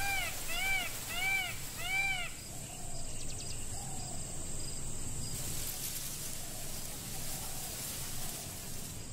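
Indian peafowl calling: four arched, pitched notes, one about every two-thirds of a second, ending about two seconds in. Fainter calls of the same shape follow over a steady outdoor hiss.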